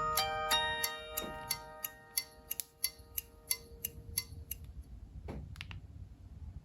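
A clock-style ringtone on a Nokia 6790 mobile phone: steady ticking about three times a second, with a few chime notes ringing out at the start and dying away. The ticking stops a little past the middle, and the rest is quieter with only a few faint clicks.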